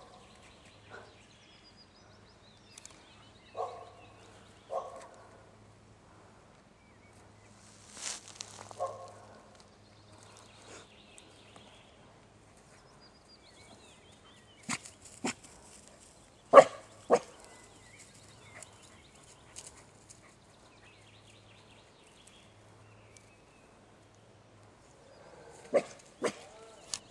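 Australian Shepherd barking in single, separate barks spread a few seconds apart, some in quick pairs, at sheet-draped figures; the loudest bark comes about two-thirds of the way in.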